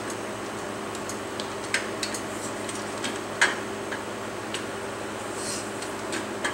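Scattered light metallic clicks from a motorcycle lift jack and its safety latch as the jack is worked, with a louder click a little under two seconds in and another about three and a half seconds in, over a steady low hum.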